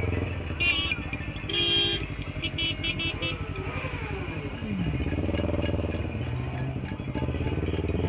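Motorcycle engine running steadily at low speed in slow, crowded traffic. Horns honk in short blasts over it, about half a second in, again around two seconds in, and several times around three seconds in.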